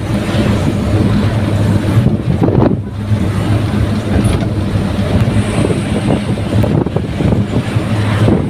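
Daihatsu Gran Max pickup on the move: a steady low engine drone with road and wind noise.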